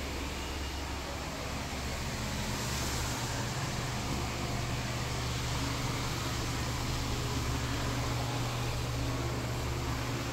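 Steady background hum and hiss in a claw-machine arcade: a low electrical or fan drone with a rush of street traffic coming through the open front.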